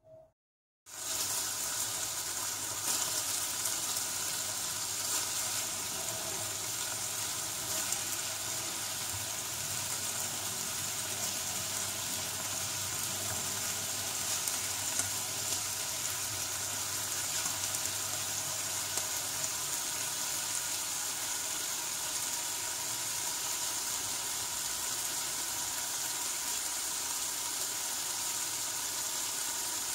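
Longanisa sausages sizzling as they fry in oil in a nonstick pan. The sizzle starts suddenly about a second in and then runs steadily, with a faint steady hum underneath.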